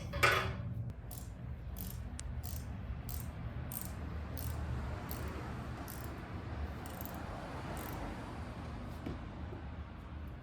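A sharp knock, then a socket ratchet clicking in steady strokes, about three clicks every two seconds, as the oil pan drain plug is worked loose. A steady hiss rises behind the clicks, the sound of engine oil starting to drain into a pan.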